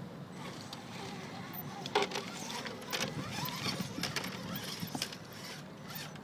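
Axial SCX10 electric scale rock crawler climbing over loose rocks: a low steady hum from its brushed motor and gearbox, with scattered clicks and knocks as the wheels and chassis strike stone, the sharpest about two seconds in and again around three.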